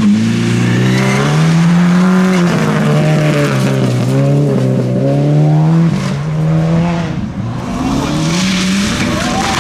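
Rally car engines at full throttle on a gravel stage, the note climbing and dropping in steps with gear changes, first from a Ford Fiesta rally car; after a short dip a Mitsubishi Lancer Evolution rally car comes in with its engine revving up.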